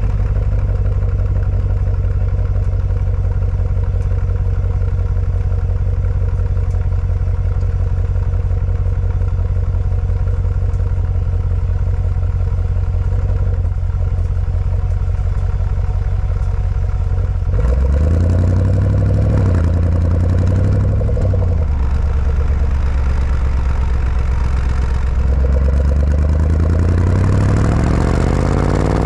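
Jaguar F-Pace SVR's 5.0-litre supercharged V8 idling steadily, heard at the exhaust tips. About two-thirds of the way in the revs rise and fall a couple of times, and near the end they climb again.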